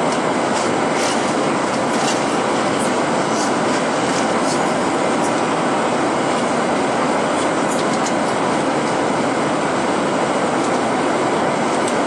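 Steady cabin noise of a Boeing 737-900ER in cruise, heard inside the cabin at a window seat: an even rush of airflow over the fuselage mixed with the drone of its CFM56-7B turbofan engines.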